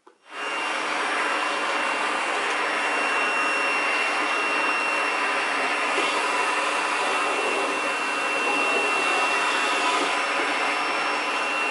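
Canister vacuum cleaner running steadily with a constant high whine over its rushing air noise, its floor brush being pushed over a shag rug. The sound cuts in abruptly just after the start.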